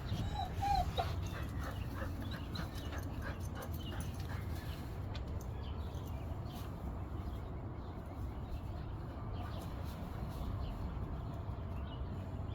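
German shorthaired pointer whining: two short rising-and-falling whines about half a second in, followed by a few faint ticks over a low steady rumble.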